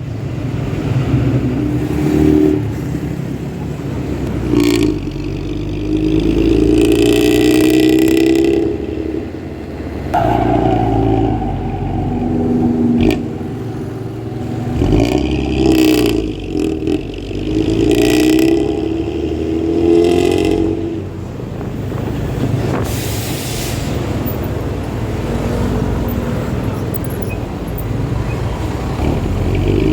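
Intercity bus's diesel engine revved again and again, each rev swelling and falling away, with a deep snoring growl ('ngorok') from the exhaust. A short hiss about two-thirds through.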